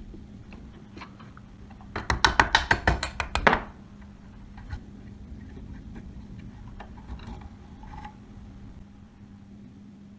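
A rapid run of about a dozen sharp knocks or taps, about two seconds in and lasting a second and a half, over a steady low hum, with a few faint clicks afterwards.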